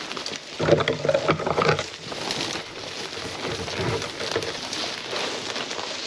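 A long dead tree branch dragged along the ground through dry grass and brush, scraping and rustling unevenly, loudest about a second in.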